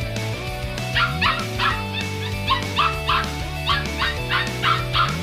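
Background music with a steady beat: held low notes under a quick, evenly repeating figure of short high-pitched notes.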